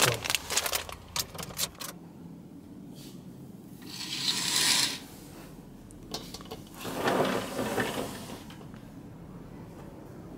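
Snack packets being handled: a quick run of crinkles and clicks in the first two seconds, then two separate bursts of rustling.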